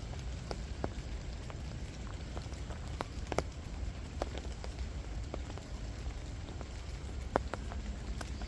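Light rain: single drops strike close by as scattered sharp ticks, irregular and a few per second, over a steady low rumble.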